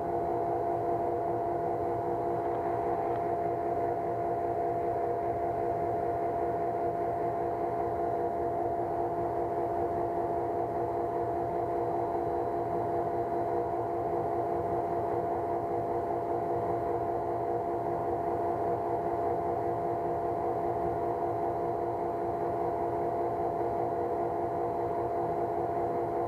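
Lochinvar pool heater running steadily, its inducer blower and burner making an even hum with a constant whine that does not change.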